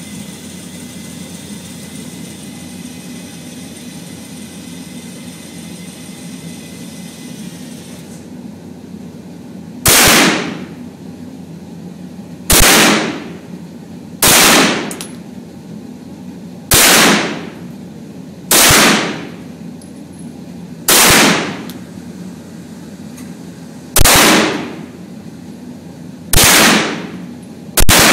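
Beretta CX4 Storm 9mm carbine fired as nine single shots about two to three seconds apart, each loud crack trailing off in the echo of the indoor range. Before the first shot, a steady motor whine runs for about eight seconds as the target carrier sends the paper target downrange, then stops.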